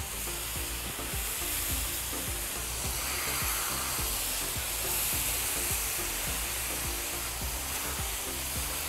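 Marinated eye of round steaks sizzling steadily on a hot flat-top griddle as they are turned with metal spatulas.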